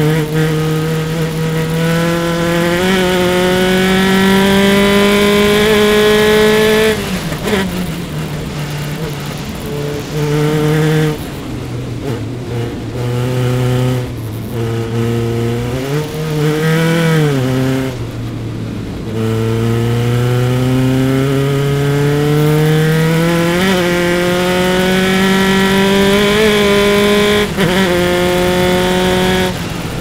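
Single-seater race car engine at racing speed. It pulls up through the revs with a steadily climbing pitch for about seven seconds, then the revs fall away in steps with short throttle blips as it downshifts into the corners. From about nineteen seconds it climbs steadily again on full throttle, and it drops off once more near the end.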